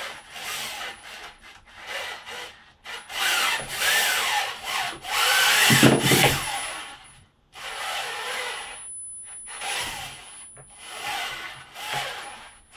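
Geared DC motor in a 3D-printed robot arm's shoulder joint whining and grinding in repeated bursts, its pitch wavering, as its position control loop fights back against the arm being forced by hand. The longest and loudest stretch runs from about three to seven seconds in, with a heavier low rumble near its end.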